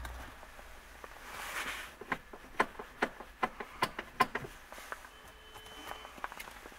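Manual gear lever of a VW Caddy rattled by hand against a locked Construct gear-shift lock: a brief rustle, then a run of sharp, irregular clicks and knocks as the lever is tried but stays held in gear.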